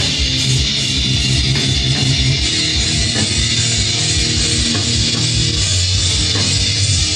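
Heavy metal recording played back loud over studio monitors: distorted electric guitar over bass, with a fast steady pulse underneath.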